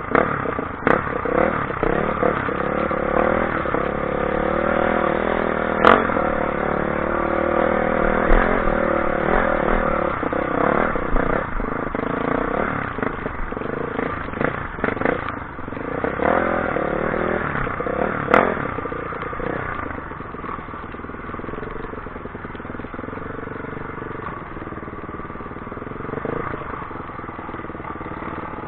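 An engine running, its pitch shifting slowly, with a few sharp knocks over it; it gets somewhat quieter about two-thirds of the way through.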